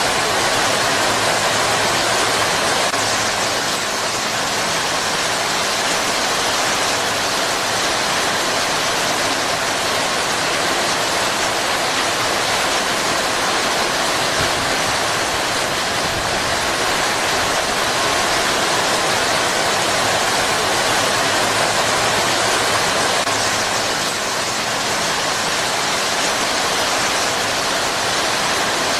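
Heavy rain pouring steadily on palm foliage, an even, dense hiss with no thunder or other breaks.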